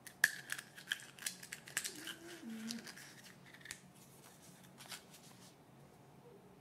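Hands unwrapping a Kinder Surprise egg: a quick run of small crackles and clicks from foil and plastic, densest in the first three and a half seconds and thinning out after.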